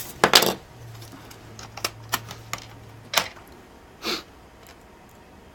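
Scattered light clicks and brief scuffs of small plastic laptop parts being handled, as the memory cover is dusted and fitted. The loudest scuff comes just after the start and another about four seconds in.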